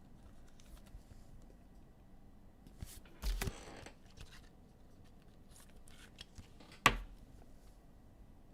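Trading cards and pack wrappers being handled: faint scattered rustles and clicks, a short rustle a little over three seconds in, and one sharp click about seven seconds in.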